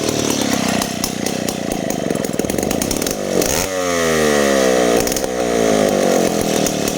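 Stihl chainsaw running. A little over three seconds in it revs up sharply, then its engine pitch sinks twice while it stays loud.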